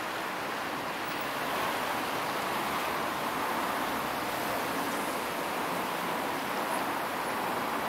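Steady hiss of street traffic on a wet road, tyres and engines blended into one even noise, with a double-decker bus drawing near.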